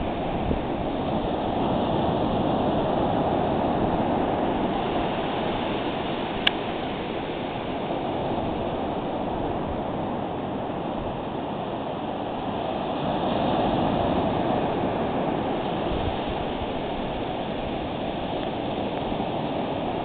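Small surf washing onto a sandy beach: a steady rush that swells a little twice. A single sharp click cuts through about six seconds in.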